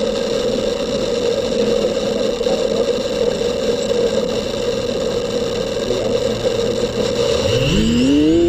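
FPV quadcopter's brushless motors and propellers spinning at a steady idle on the ground, then a rising whine near the end as the throttle comes up for takeoff.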